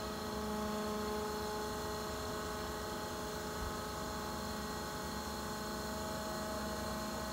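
Kalmar EC 15 forklift running, a steady hum and whine of several held tones over a low rumble.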